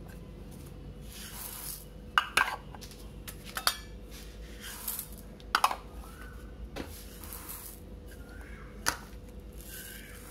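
Rice and dry lentils being tipped from cups into a cooking vessel: a few short pouring swishes of the grains and scattered clinks and knocks of the containers against the pot.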